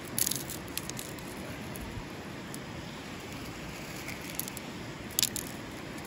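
Salt being shaken onto a piece of raw meat: two short crackly rattles, one right at the start and one about five seconds in, over the steady rush of a river.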